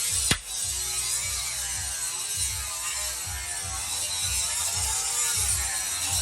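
An electric power tool working steel, its motor pitch wavering up and down as it is pressed into the metal, over background music.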